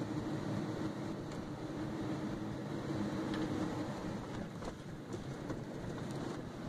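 Steady road and engine rumble of a moving car, heard from inside the cabin, with a few faint ticks.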